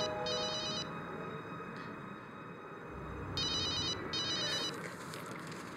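Telephone ringing with a warbling electronic trill in double bursts: one ring ends just after the start and a second comes about three and a half seconds in.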